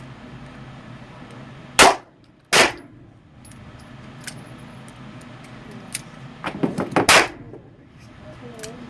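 .357 Magnum handgun fired three times in an indoor range: two shots less than a second apart, then a third about four and a half seconds later, each with a short echo off the range walls. Before the third shot there is a quick run of smaller cracks and clicks.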